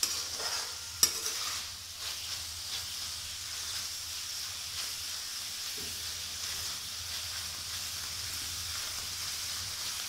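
Sliced sarputiya (ridge gourd) sizzling steadily in oil in a metal kadhai on high flame, stirred with a metal spoon. The sizzle is the excess water being fried off. A few sharp clinks of the spoon against the pan come in the first two seconds, the loudest about a second in.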